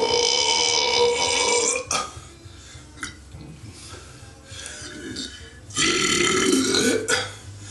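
A person belching loudly: a long, drawn-out, wavering belch ends about two seconds in. A second belch of about a second follows near the end, with a couple of small clicks in the quieter gap between them.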